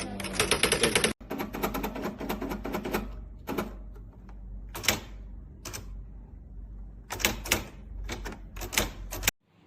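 Nakajima AX-150 electronic typewriter typing: a fast run of strikes for about the first three seconds, then slower, scattered single strikes. The sound cuts off suddenly near the end.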